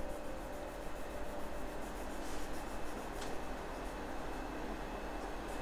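Small polishing stone rubbing on the steel tip of a katana blade, a steady soft scraping, as the yokote line is ground in to separate the point from the rest of the blade.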